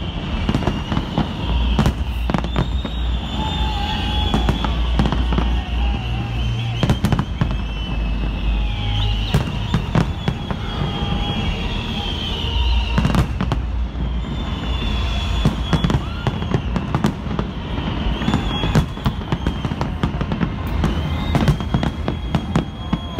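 Aerial fireworks display bursting in rapid succession: many sharp bangs close together over a continuous low rumble.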